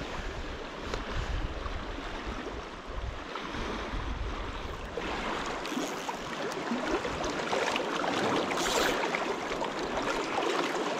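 River current rushing and splashing through a riffle, with wind rumbling on the microphone for the first five seconds; after that the wind drops and the water grows louder and more crackly.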